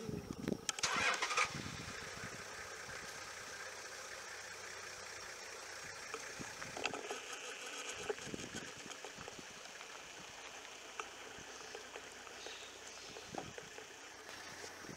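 A vehicle engine starting about a second in, then running steadily at idle.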